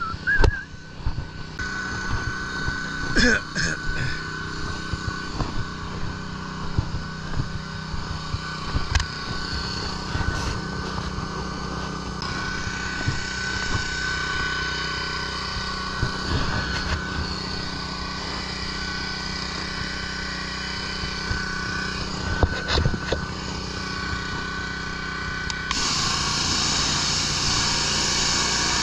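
Small gas engine of a pressure washer running steadily, with a few light knocks. About three seconds before the end the spray comes on, a loud hiss of the water jet striking the wooden deck boards over the engine.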